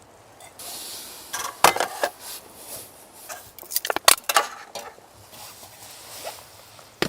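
A run of sharp knocks, clinks and scrapes from objects being handled, loudest about a second and a half in and again about four seconds in.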